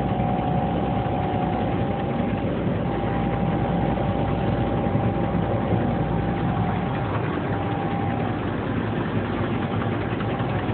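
Tsugami B0386III CNC Swiss-type lathe running a job: a steady machining noise with a whine that cuts out and comes back several times.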